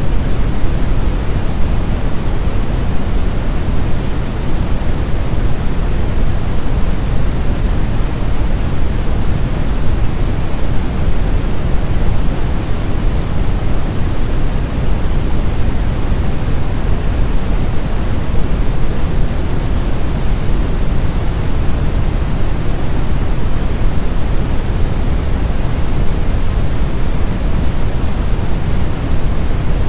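Synthetic brown noise: a loud, steady, deep rumbling hiss with most of its weight in the bass, smooth and unchanging.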